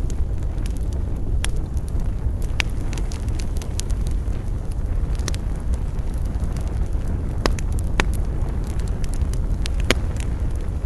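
Campfire burning: a steady low rumble with scattered sharp crackles and pops of the burning wood, about half a dozen at irregular intervals.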